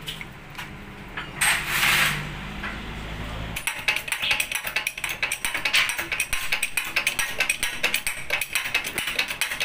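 Rapid ratchet-like metallic clicking from the shop press as a wheel hub is pressed, after a steady low hum with a brief hiss in the first few seconds.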